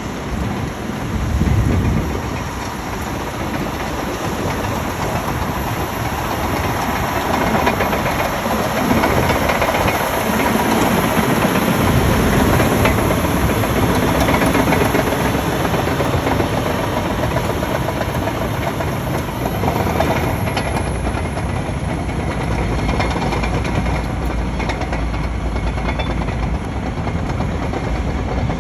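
A large heavy vehicle running, a loud, steady rumble and clatter without pause.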